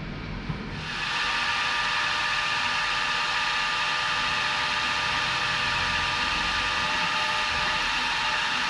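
Milling machine spindle starts about a second in and runs steadily with a whine, a drill bit boring into an aluminium plate.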